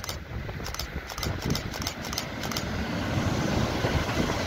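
Double-deck electric multiple-unit train approaching and passing just below, its rolling rumble and wheel noise growing louder. A quick series of sharp clicks in the first two and a half seconds.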